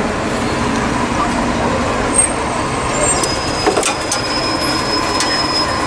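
Street traffic with a heavy vehicle such as a bus running close by: a steady loud rumble. A few faint clicks come about three and a half seconds in.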